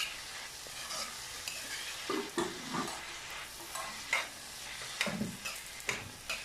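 Metal spoon stirring chopped onion, green chilli and capsicum frying in oil in an iron wok: a steady sizzle with irregular scrapes and knocks of the spoon against the pan, about one or two a second.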